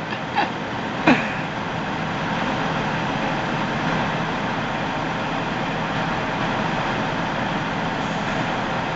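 Steady engine and traffic noise at a truck stop, with a short falling squeak about a second in.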